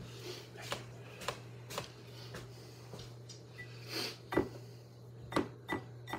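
Hand-held flour sifter being worked over a glass bowl: a run of irregular short clicks and rasps from its mechanism, with a steady low hum underneath.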